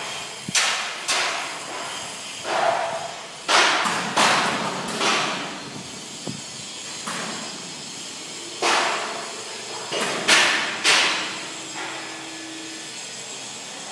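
Hammer blows on sheet steel: about a dozen irregularly spaced strikes, each with a ringing tail.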